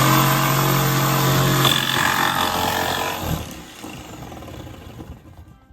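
Electric jigsaw running at full speed, a steady motor hum under the rattle and hiss of the blade, then dying away over the last few seconds.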